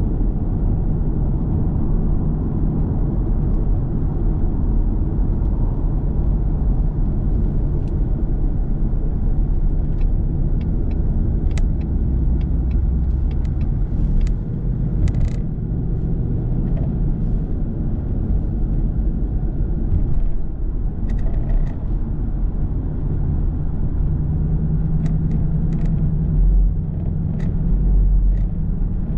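Steady road and engine noise heard inside a car cruising on a freeway, mostly a deep rumble, with a few brief clicks here and there.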